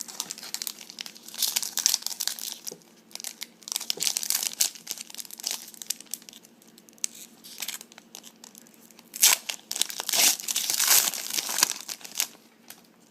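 Trading card pack wrapper being torn open and crinkled by hand, in irregular crackling bursts, loudest about nine to eleven seconds in.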